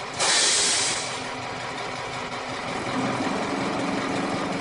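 Milk tanker truck's engine running. A loud hiss lasting under a second comes at the start, and the engine note rises and grows a little about three seconds in.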